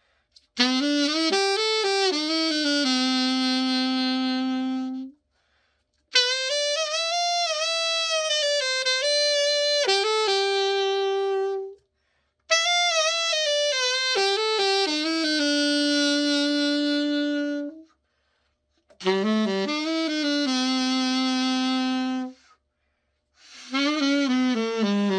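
Yamaha YAS-275 alto saxophone played solo in a play test after a full overhaul. Four melodic phrases, each settling onto a long held note, with short breath pauses between, and a fifth phrase begins near the end.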